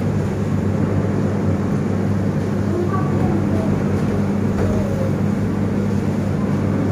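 A steady low machine hum with a rushing noise over it.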